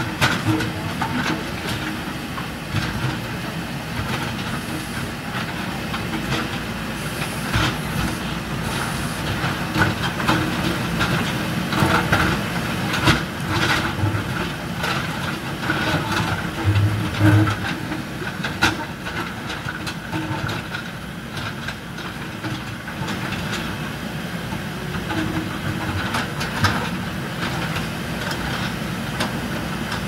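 Diesel engines of JCB 3DX backhoe loaders running steadily under load while a steel backhoe bucket digs through broken concrete and rubble, with several sharp clanks and knocks of metal on concrete.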